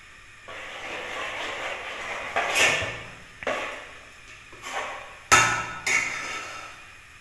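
Metal ladle scraping in a pot of pancake batter and knocking against the pot about five times, the loudest knock near the end.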